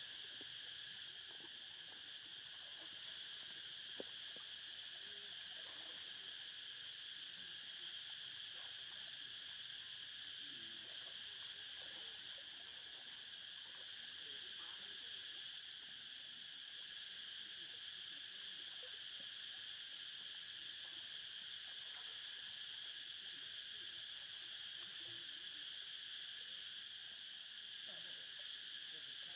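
Steady, high-pitched insect chorus droning without a break, with faint scattered small sounds underneath and a single sharp click about four seconds in.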